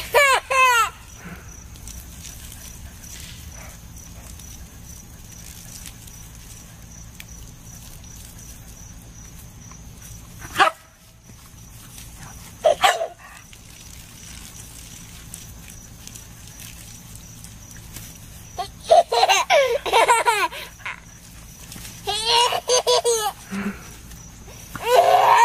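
A baby laughing and a dog barking in short bouts, with a long quieter stretch in the first ten seconds. The bouts come thickest in the last six seconds.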